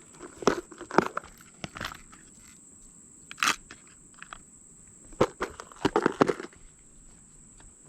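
Irregular crunches and knocks in small clusters, a louder scuffing one near the middle, from someone moving about and handling gear at the creek's edge. Behind them a steady, high-pitched insect drone.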